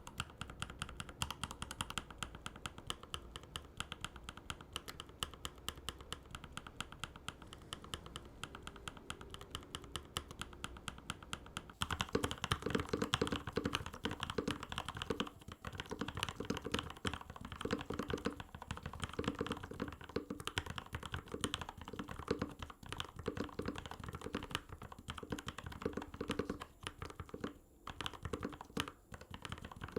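Fast, continuous typing on a mechanical keyboard with linear switches, as a typing sound test. About twelve seconds in, the typing turns louder and deeper, as a different set of switches is tested.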